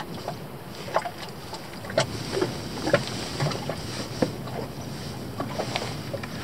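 Small waves lapping and slapping irregularly against the hull of a small boat, over a steady hiss of wind.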